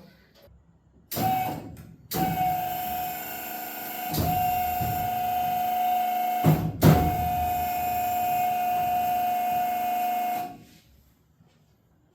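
Electric pump of a hydraulic suspension running with a steady whine as it lowers the bus. It gives a short burst, then a long run of about eight seconds, broken briefly by a knock midway, and cuts off near the end.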